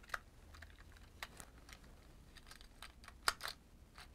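Faint scattered clicks and taps from a die-cast Hot Wheels car being pushed into a plastic toy truck trailer. The loudest is a pair of clicks about three seconds in.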